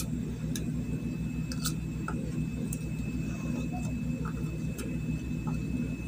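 A steady low hum with a fast, even flutter, with faint scattered ticks and clicks while a wire is being soldered onto a circuit board joint.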